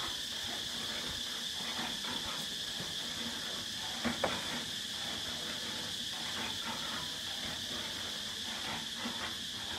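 Clay roof tiles clinking and knocking as they are handled and laid on a wall's roof, in scattered short taps with a louder knock about four seconds in, over a steady high hiss.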